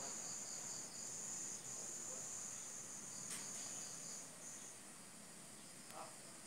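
Insects trilling: a steady high-pitched trill that breaks off briefly a few times and stops a little past the middle, with a fainter, faster pulsing chirp under it. A single sharp click about three seconds in.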